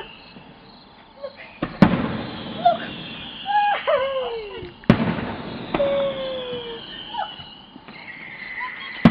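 Fireworks going off: two loud sharp bangs about three seconds apart with a few smaller pops, and falling whistling tones in between.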